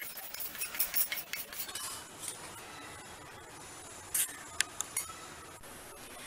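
Dry-roasted whole spices (coriander seeds, peppercorns, cumin, fennel, garlic and dried chillies) rattling into a steel mixer-grinder jar as a wooden spatula scrapes them off a steel pan. A little past four seconds in, a spoon clinks sharply against the steel jar a few times while scooping out the ground powder.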